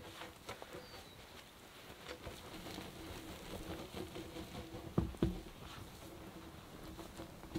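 Footsteps and light rustling as a person walks over moss and rock carrying a wooden pole, with two heavy dull thuds about five seconds in.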